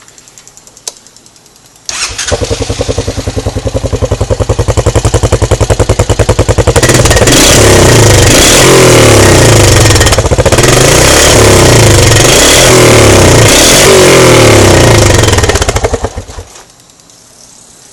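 2011 Honda Foreman 500 ATV's single-cylinder four-stroke engine with a gutted exhaust, starting about two seconds in and idling with a fast, loud beat. It is then revved up and down for several seconds before shutting off near the end.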